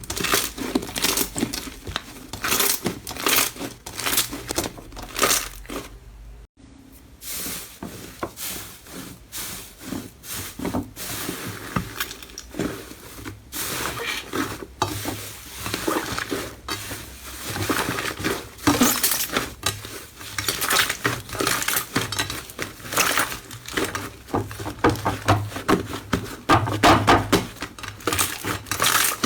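Hands squeezing, poking and stretching slime, making a dense run of sticky clicks, pops and crackles. There is a brief break about six seconds in.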